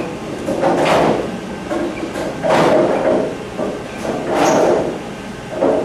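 Bowling-alley rumble: a rolling, rumbling noise that swells and fades four times, about every one and a half to two seconds.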